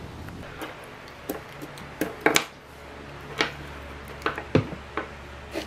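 Small toys clicking and tapping on a wooden table now and then, a handful of light knocks over a low steady hum.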